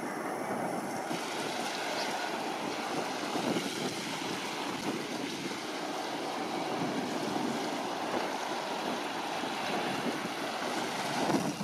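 Wind blowing across the microphone, with waves washing against the shore: a steady, slightly fluctuating noise.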